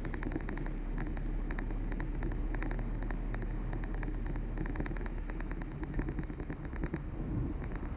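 A car driving: a steady low rumble of engine and road noise, with many small ticks over it.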